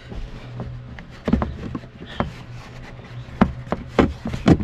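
Hard plastic kick panel trim being pushed and tapped back into place in a pickup's footwell: scattered knocks and plastic rubbing, with a sharper knock near the end, over a faint steady low hum.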